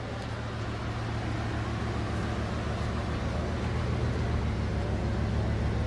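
Bugatti Veyron Grand Sport's quad-turbocharged W16 engine running with a steady low drone, gradually getting louder.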